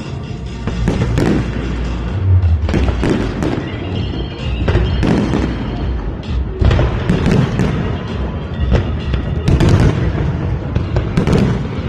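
Aerial fireworks bursting in an irregular string of a dozen or so bangs, over music playing along with the show.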